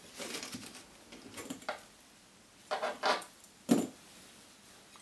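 Small metal fly-tying tools being handled on the bench, with a few soft rattles and scrapes, then a sharp click nearly four seconds in, as the whip finisher is picked up.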